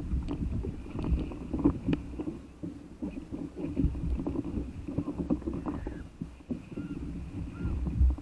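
Seawater sloshing and splashing against an inflatable stand-up paddle board, with uneven knocks and thumps on the board as a person pushes it and climbs onto it.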